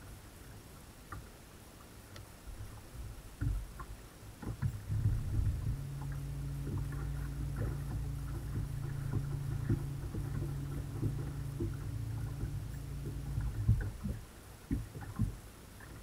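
Bow-mounted electric trolling motor running with a steady low hum, starting about five seconds in and cutting off near the end, with scattered light knocks on the boat's deck.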